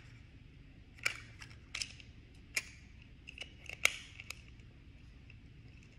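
Small plastic Super Things toy container being handled and worked open: about nine sharp, irregular plastic clicks and snaps, starting about a second in and stopping after about four and a half seconds.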